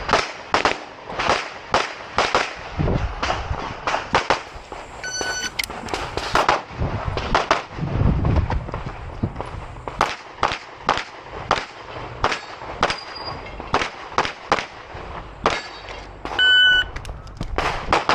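Open-division competition pistol firing in rapid strings of shots, two or three a second with brief pauses between strings. A short electronic beep sounds about five seconds in, and a louder one near the end.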